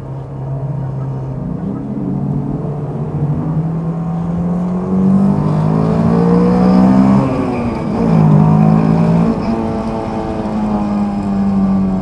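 Honda S2000's four-cylinder engine through its Mugen cat-back exhaust, accelerating in a tunnel: the revs climb over several seconds, dip briefly about seven seconds in as it shifts up, then climb again and hold, echoing off the tunnel walls.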